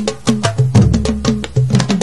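Intro music driven by fast, dense percussion strikes over a deep sustained bass.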